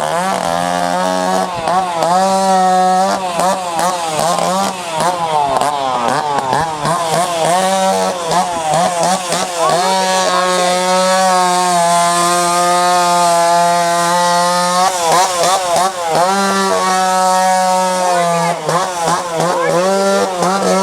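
Chainsaw carving: a two-stroke chainsaw revving up and down over and over as it cuts, held at a steady high speed for several seconds midway.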